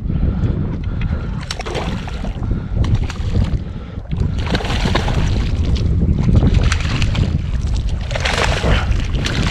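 Strong gusty wind buffeting the microphone, a dense low rumble that rises and falls, with brighter rushes of hiss about a second and a half in, around four and a half seconds, and near the end, mixed with water noise.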